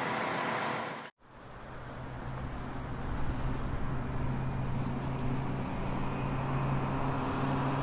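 Liebherr wheeled excavator's diesel engine running at a work site, cut off abruptly about a second in. A steady low engine hum then fades in and holds.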